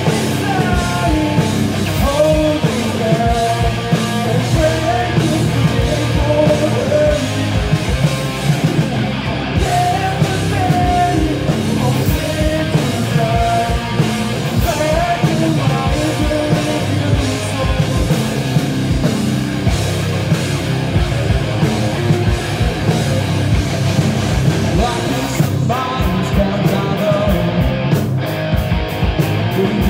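Live rock band playing loud: electric guitars, bass guitar and drum kit, with a vocalist singing over it through the first half.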